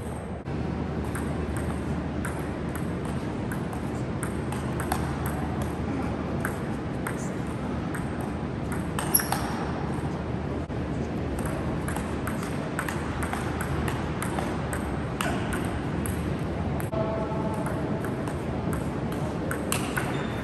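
Table tennis rallies: the celluloid-type ball clicking sharply off rubber-faced paddles and bouncing on the table, many clicks in quick back-and-forth runs, over a steady low hum.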